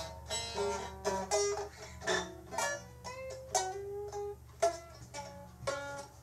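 Music: a plucked string instrument picking out a melody of single notes, a few a second, some held and bending slightly in pitch, over a faint steady low hum.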